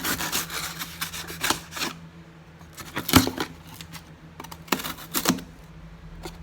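Wrapped coin rolls clicking and knocking against each other and the cardboard box as they are flipped over by hand. A quick run of clicks comes first, then a few separate sharp knocks.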